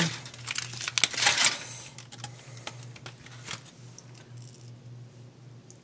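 Aluminium foil crinkling and crackling as a foil packet is pulled open on a baking sheet. The crackles are densest in the first second and a half, then come only now and then. A low steady hum runs underneath.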